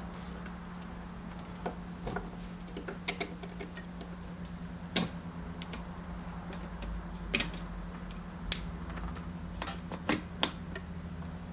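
Irregular sharp clicks and taps, a dozen or so, with the loudest about halfway through, from hands handling tools and parts at an electronics workbench. A steady low hum runs underneath.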